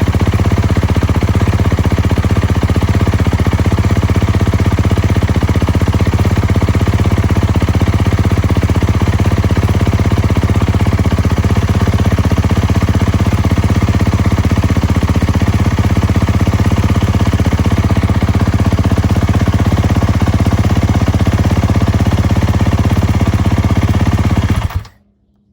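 Kawasaki KX450F's 450 cc single-cylinder four-stroke engine idling steadily after an oil change, cutting off suddenly near the end.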